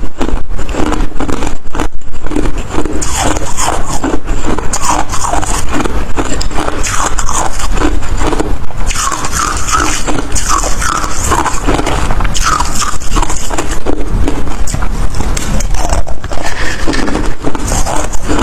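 Ice being bitten and chewed close to the microphone: a rapid, unbroken run of loud crunches and grinding.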